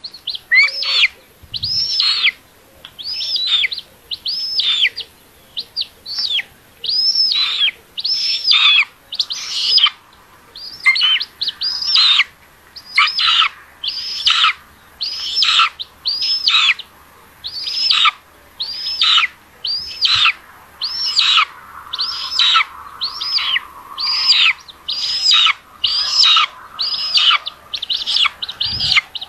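Raptor nestlings begging for food: a thin, high call note repeated over and over, a little more than once a second, each note rising and then falling in pitch.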